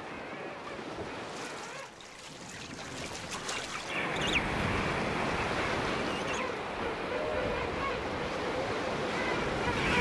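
Ocean surf washing and breaking, swelling louder about halfway through, with faint wavering king penguin calls over it.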